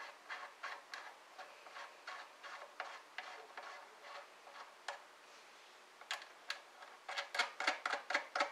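Light, evenly spaced clicks, about three a second, as the seating stem of a rifle reloading die is screwed out by hand in the press. The clicks pause about halfway through, then come back louder and quicker near the end.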